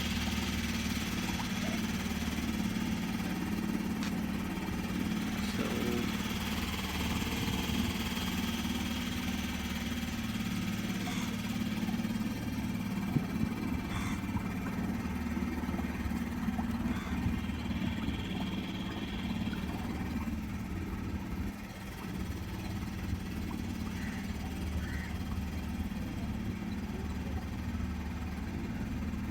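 Petrol boat engine running steadily at an even pitch, heard from on board the boat.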